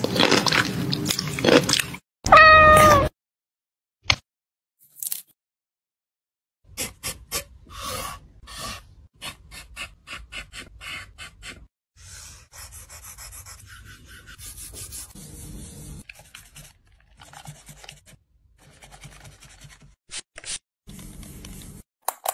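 A domestic cat gives one short meow about two seconds in, after a couple of seconds of music with a voice. Later comes a run of quick light taps and clicks, then faint scattered ticks and rustling.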